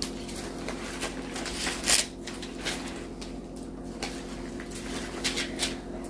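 Scattered soft clicks and rustles of handling, one louder rustle about two seconds in, over a steady low hum.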